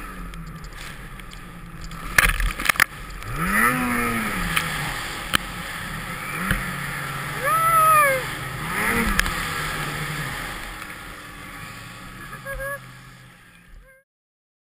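Snowmobile engines revving up and down several times over a steady engine drone, with a few sharp knocks a couple of seconds in. The sound fades out to silence near the end.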